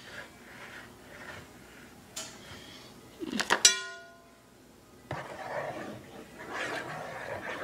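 Bowls being handled: a few knocks, then a sharp clink that rings briefly about three and a half seconds in, followed by rustling of paper towels.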